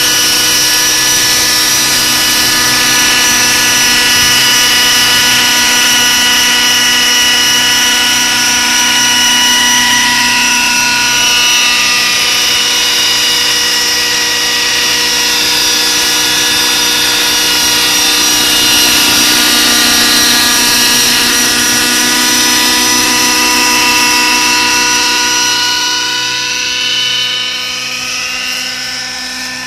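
Radio-controlled scale Schweizer 300 model helicopter in flight: a steady high-pitched whine from its motor and spinning rotors, fading near the end as it flies farther off.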